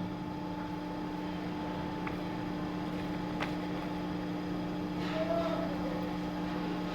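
Steady electric hum of a paper guillotine cutter's motor running, with a couple of light clicks.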